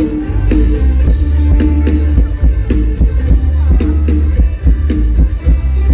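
Live mor lam band music played loud through a concert PA. It has a heavy bass line, a drum-kit beat and a repeating riff of short notes.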